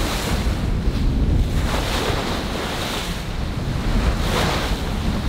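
Heavy wind buffeting the microphone over the rush of water along the hull of a Mason 63 ketch sailing upwind at about nine knots. The water noise swells several times as the bow meets the waves and throws spray.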